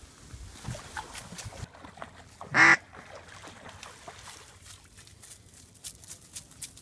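A single loud, short duck quack about two and a half seconds in, lasting about a quarter of a second.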